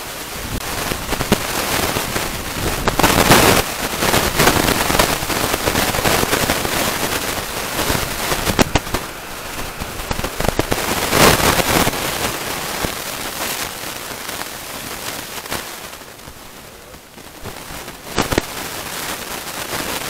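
Wind buffeting the microphone: a loud rushing, crackling noise that swells in gusts about 3, 11 and 18 seconds in, over a passenger train running past on the line.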